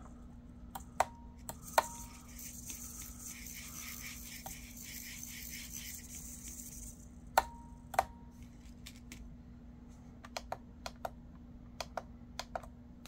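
Clicks of a radio-control transmitter's toggle switches and taps on its touchscreen. A few sharp clicks with a short ring come near the start and again about halfway, and a run of softer, quicker taps comes near the end. Between about two and seven seconds in, a faint steady rattling hiss runs under them.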